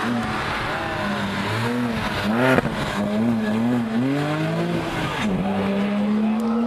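Sports car engine revving hard on a hillclimb run, its pitch rising and falling several times through gear changes and throttle lifts, with a sharp loud crack about two and a half seconds in. It then pulls up through one steady, rising note.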